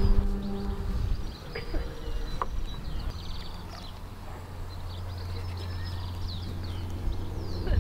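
Small birds chirping and trilling in short phrases, with a low steady hum underneath from about three seconds in.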